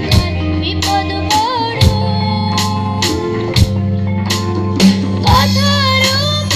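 Amplified live band: a woman singing a melody into a microphone over electric guitar, bass guitar, keyboard and a drum kit keeping a steady beat.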